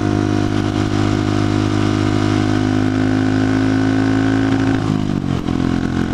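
Buell Blast's single-cylinder engine running while the motorcycle is ridden, its pitch slowly rising under throttle, then the revs fall about five seconds in.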